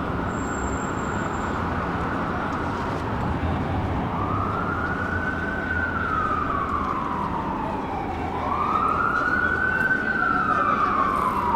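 Emergency vehicle siren wailing, its pitch slowly rising and falling about every four seconds and growing louder near the end, over a steady low background rumble.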